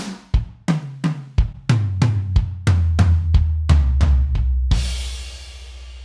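Sampled Pearl Masters Maple drum kit (Progressive Foundry SDX samples) triggered from an electronic kit. Evenly spaced hits come about three a second, their low drum notes stepping down in pitch like a tom fill. A crash cymbal near the end rings out and slowly fades.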